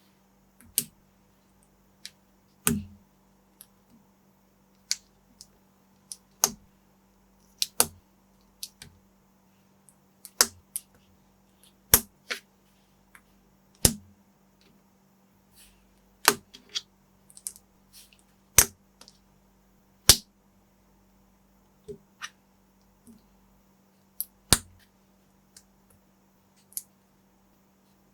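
Plastic LEGO-compatible building bricks being clicked and pressed together by hand: sharp, irregular clicks about once a second, over a faint steady hum.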